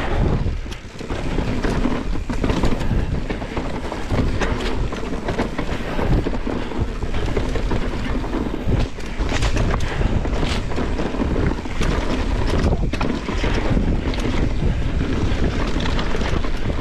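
Wind rushing over the microphone and mountain-bike tyres rolling over a dusty dirt trail at speed, with frequent short clicks and rattles of the bike over bumps. The rush dips briefly about a second in.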